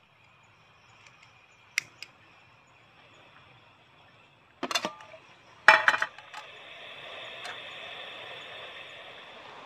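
Lighting a portable canister gas stove: a couple of sharp clicks about two seconds in, then a metal frying pan clanks down onto the burner in two clusters about five and six seconds in, the loudest sounds, followed by a steady hiss of the burning gas.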